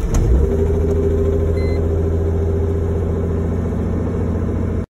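Mercedes W210 E320's 3.2-litre V6 catching at about −40 °C after standing two days, with a sharp click at the very start. The engine then settles into a steady, even idle.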